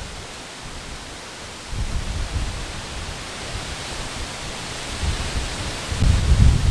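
Strong wind buffeting a phone's microphone: a gusty low rumble over a steady rushing hiss, lighter for the first couple of seconds, then gusts building, the strongest near the end.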